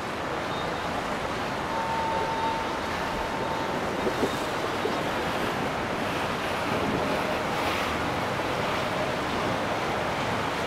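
Steady rush of water with wind noise on the microphone.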